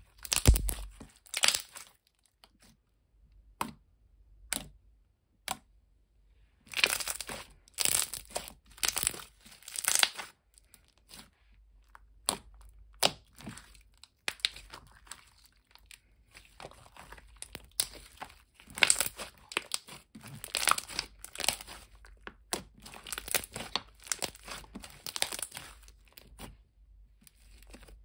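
Hands squishing, folding and stretching thick glitter slime, making irregular wet crackles, clicks and small pops in clusters with short pauses between them.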